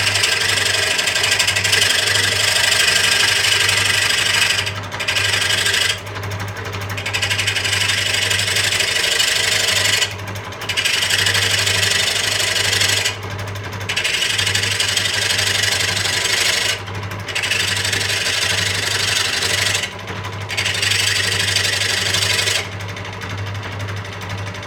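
Scroll saw running with a chainsaw round file clamped in place of the blade, the file rasping against the steel edges of a tire iron over the saw's steady hum. The rasping drops away for short moments every few seconds, with a longer break near the end.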